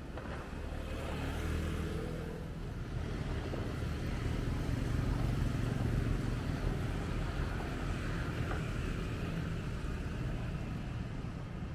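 Street traffic: motor vehicles running in a steady low rumble that swells toward the middle and eases slightly near the end.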